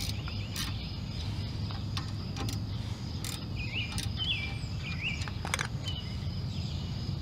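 Outdoor insects buzzing steadily and birds chirping in short calls, over a low steady rumble. A few scattered sharp clicks come from tool work on the truck's front brake caliper bolts.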